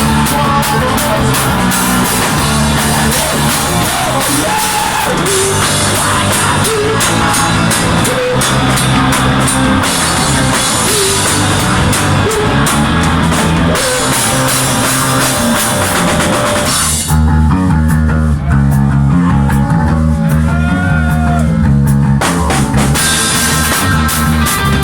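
A rock band playing with drums and guitar. About seventeen seconds in, the cymbals and high end drop out for a few seconds, leaving the low bass-heavy part, and the full band comes back in near the end.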